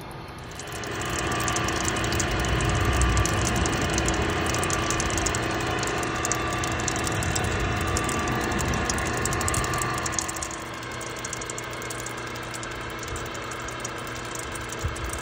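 Six-inch gutter machine running, its drive gear motor turning the roller chains and sprockets as gear oil is poured onto the chains: a steady whine with a fast chain rattle. It starts up about a second in and drops to a lower level about ten seconds in.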